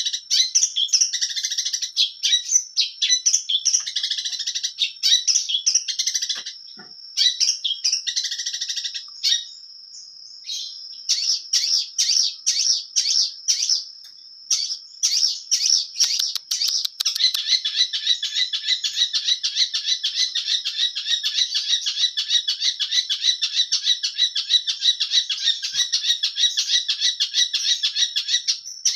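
Long-tailed shrike (cendet) singing a fast, varied song of chattering notes, a mimic's song full of borrowed material. Partway through it holds one long, steady high whistle for several seconds, then breaks into a continuous rapid warble through the second half.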